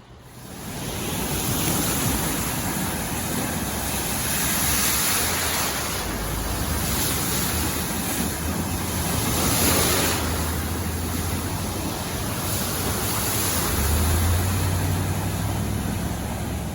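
A vehicle driving through floodwater on a road: a steady rush of spraying water over a low engine hum, swelling a little around the middle and again near the end.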